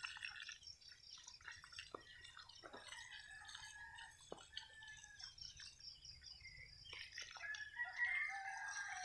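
A rooster crowing faintly, loudest near the end, over water from a garden hose splashing and dripping onto soil.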